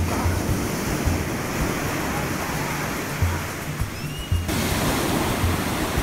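Ocean surf washing up a sandy beach, a steady hiss of breaking foam and water, with the bass notes of background music repeating underneath. The wash shifts abruptly about four and a half seconds in.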